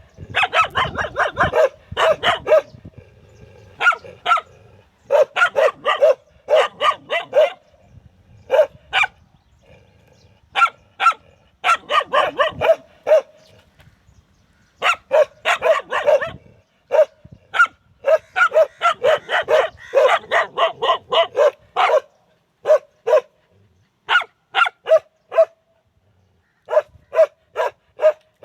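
Dogs barking: runs of short, sharp barks, several a second, broken by brief pauses.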